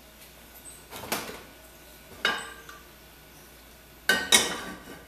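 Cookware clattering on a gas stove's metal grates: three separate knocks, each with a short ring, the last a quick double knock near the end.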